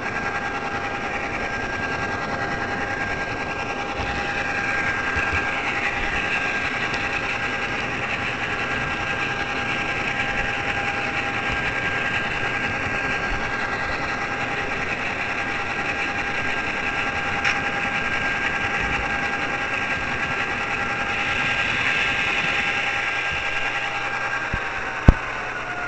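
HO scale model train running on its track, heard from a camera riding aboard: a steady electric motor whine over the noise of the wheels on the rails. Near the end the whine falls in pitch as the train slows, and a single sharp click sounds just before the end.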